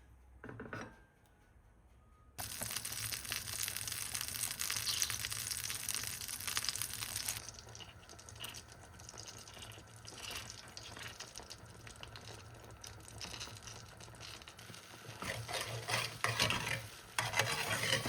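Water running from a kitchen tap into a sink, turned on suddenly about two seconds in. It runs heavily for about five seconds, then splashes unevenly, with louder clattering near the end as things are washed under it.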